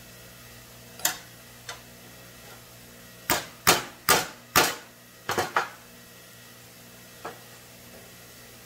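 Hammer striking bent engine pushrods laid across a wooden block to straighten them. Two lighter knocks about a second in, then a quick run of six sharp blows, and one more light knock near the end.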